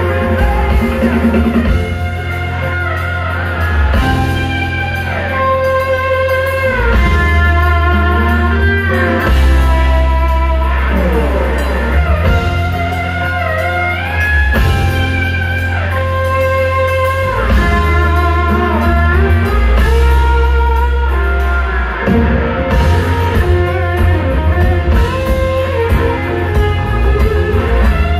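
Live rock band playing an instrumental passage: an electric guitar lead with bent notes and a long falling slide, over bass and drums.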